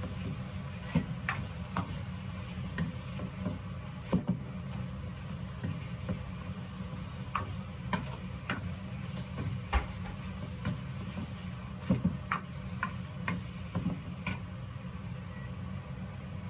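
Utensil clacking and scraping against a skillet while udon noodles are stir-fried and tossed: irregular sharp taps about once a second, over a steady low hum.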